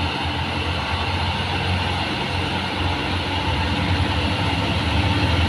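Heavy trucks' diesel engines running under load as they drive up a hill, a steady low drone mixed with tyre and road noise, growing a little louder near the end.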